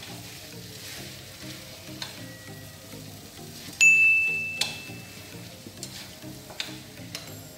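Rice vermicelli sizzling in a frying pan as it is tossed with chopsticks, with a few sharp clicks, over background music. About four seconds in, a loud high ding rings for under a second.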